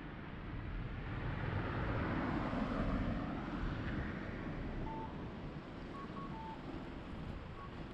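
A car passes on the road, loudest about two to three seconds in. From about five seconds in, a Japanese pedestrian crossing's audible signal plays: repeated electronic cuckoo-like two-note calls, a short higher note then a longer lower one, telling pedestrians that it is safe to cross.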